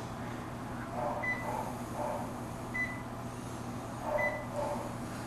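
Veterinary anesthesia monitor beeping with the heartbeat: three short, high, identical beeps about a second and a half apart, over a steady low hum of equipment.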